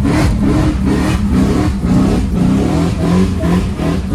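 V8 engine of a 1990s Holden Commodore VS, run with no exhaust, revving hard under acceleration, heard from inside the cabin; its pitch rises and falls in short surges about twice a second.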